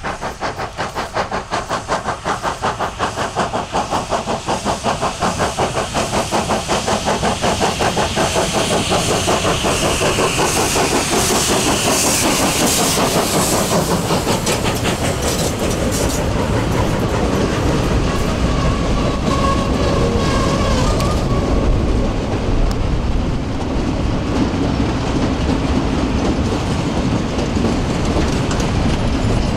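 Freight wagons of a steam-hauled train rolling past, a steady rumble and clatter of wheels on the rails. A regular pulsing dies away over the first several seconds, and brief high squeals come through between about ten and twenty seconds in.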